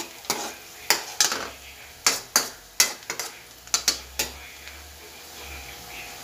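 Metal spoon stirring and scraping chopped onion and garlic in a metal wok: about a dozen sharp clanks against the pan in the first four seconds. After that comes a quieter, steady, faint sizzle.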